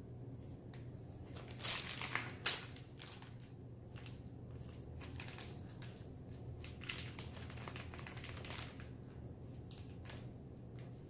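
Plastic piping bag crinkling and crackling as it is squeezed and twisted by hand to push out chocolate whip mixture, in scattered bursts with the loudest crackles about two seconds in.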